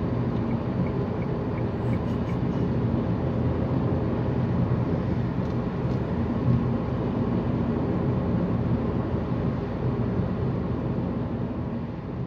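Steady engine hum and tyre-on-road noise heard from inside the cabin of a car cruising on a highway.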